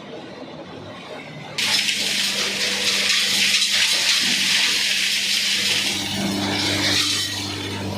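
PP/LD plastic washing machine running: a loud rush of water and churning starts abruptly about one and a half seconds in, over the steady hum of its electric motor.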